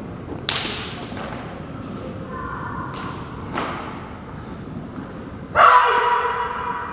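A taekwondo form performed barefoot on mats. Sharp snaps and thuds of strikes and steps come about half a second, three and three and a half seconds in. About five and a half seconds in there is a loud sustained shout, the kihap.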